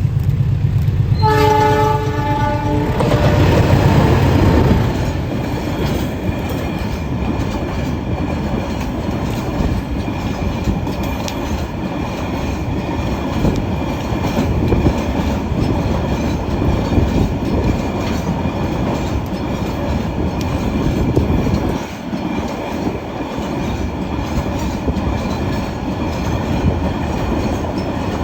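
A diesel locomotive sounds its horn for about two seconds, a chord of steady tones, over the engine's rumble. Then a train rolls past with a steady rumble and the clatter of wheels over rail joints.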